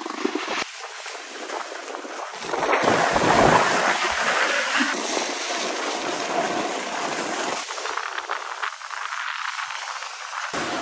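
Snowboard sliding over packed snow: a continuous scraping hiss that swells and fades as the board turns, loudest a few seconds in.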